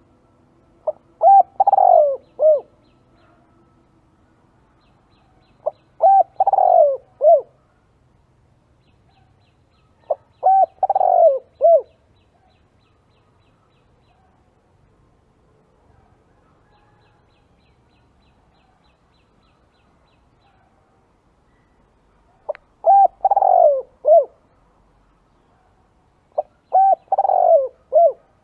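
Spotted dove cooing: five phrases of a few low coos each, several seconds apart, with a long pause in the middle.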